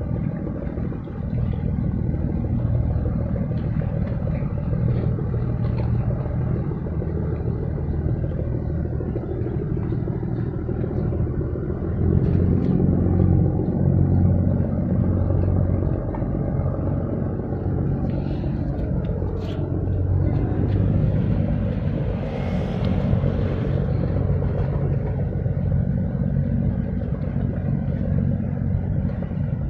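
Low, steady diesel engine rumble of the offshore tug/supply ship PACIFIC VULCAN underway at slow speed, swelling a little about twelve seconds in, with a brief hiss about two-thirds of the way through.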